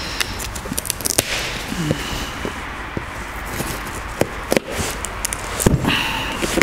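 Plastic and cardboard packaging crackling and rustling under hands, with many scattered sharp clicks and a couple of brief scratchy streaks as the packing-slip pouch on a cardboard parts box is worked at.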